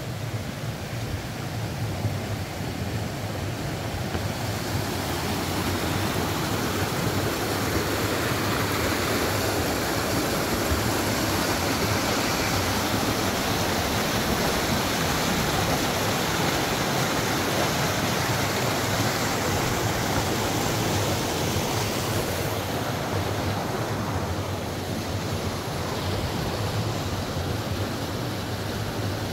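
River water rushing through a rocky cascade: a steady white-water rush that grows louder about four seconds in and eases a little near the end.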